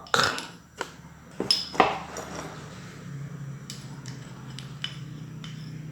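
Sharp clicks and clinks of small hard lamp parts being pried and handled while an LED lamp is taken apart. Four loud clicks come in the first two seconds, then fainter scattered ticks over a low steady hum.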